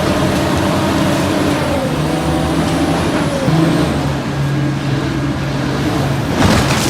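Large machine engine running steadily, with a brief knock near the end.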